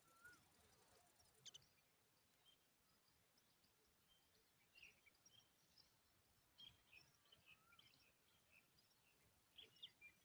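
Faint, scattered bird chirps coming in short high clusters, with a single sharp click about a second and a half in.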